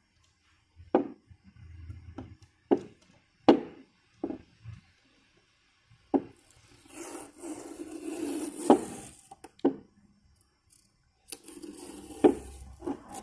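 Fingers handling a freshly spray-painted plastic car tail-light lens and peeling masking tape off it: sharp knocks and taps on the plastic, with a longer rasping peel around the middle and again near the end.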